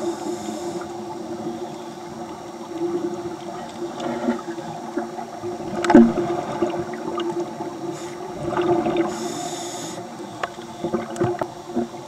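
Underwater sound of a scuba diver breathing through a regulator: a hiss of inhalation near the start and again about nine seconds in, with bubbling and gurgling from the exhalations between, over a steady low hum. A sharp knock about six seconds in is the loudest moment.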